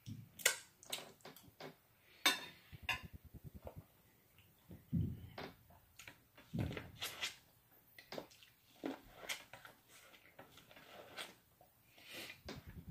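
A person eating close to the microphone: biting and chewing corn on the cob, with irregular wet mouth clicks and smacks.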